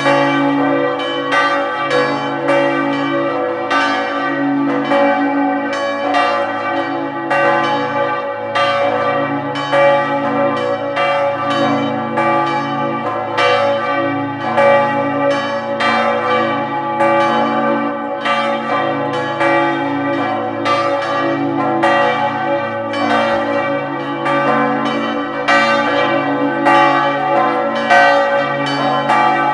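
Several church bells in a bell tower ringing together in a continuous peal. Their strikes come roughly two a second and overlap, and each bell's tone rings on between strikes.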